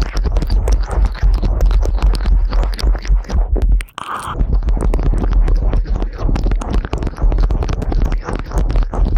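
Close-miked ASMR ear-licking and ear-cleaning sounds made right on the microphone: dense crackling and clicking with rubbing and a heavy low rumble, breaking off briefly about four seconds in.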